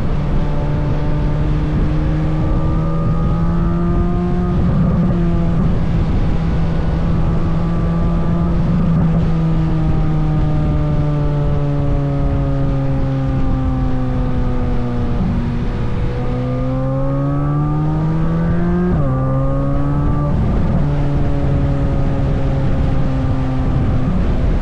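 Chevrolet Corvette C8 Z06's flat-plane-crank 5.5-litre V8 running on trailing throttle, its note slowly falling as the car coasts downhill. It then rises for a few seconds and drops sharply at a gear change about nineteen seconds in.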